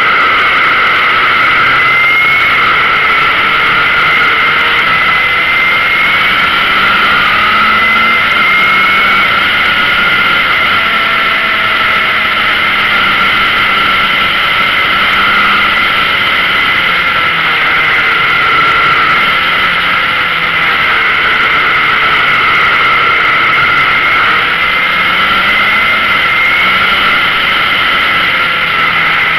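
Yamaha XJR's air-cooled inline-four motorcycle engine running at cruising speed on a winding descent, its pitch rising and falling gently with the throttle. It is heard under a loud, steady rush of wind on the bike-mounted camera.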